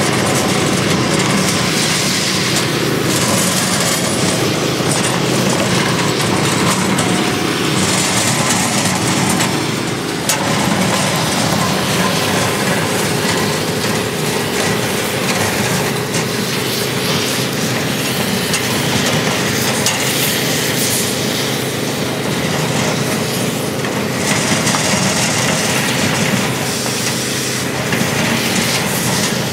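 Steady running noise of asphalt crack-sealing equipment as a wheeled applicator is pushed along a crack laying hot rubberized sealant.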